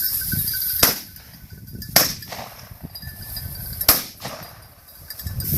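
Three sharp clicks or knocks, about one to two seconds apart, over a high rustling hiss.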